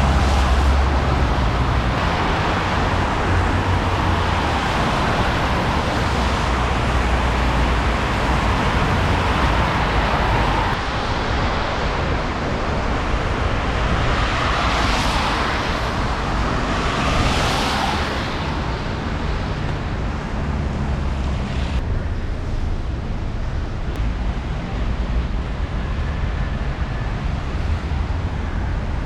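Outdoor street noise in a snowstorm: wind buffeting the microphone with a low, gusting rumble over steady traffic, and two swells of tyre hiss about halfway through as vehicles pass.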